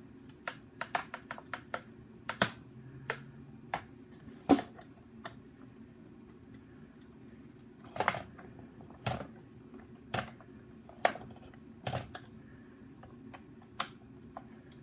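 Irregular sharp clicks and taps of plastic parts being handled and fitted together while a Nerf Elite HyperFire blaster is reassembled. There are about twenty, some louder knocks among them.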